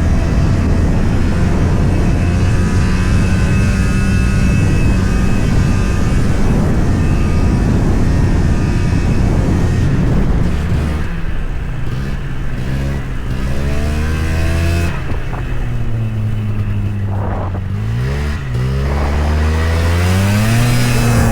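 1997 Yamaha VMax 500 snowmobile's two-stroke twin engine running under way. It holds a steady speed for about ten seconds, then eases off and wavers, and revs up again near the end. The owner says the sled is not running to its true potential and suspects the jetting, the carburetion or the clutch.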